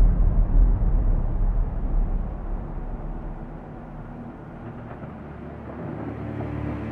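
Deep, low rumble of a cinematic soundtrack. It is loudest at the start, fades by the middle, then swells again near the end as faint tones creep in.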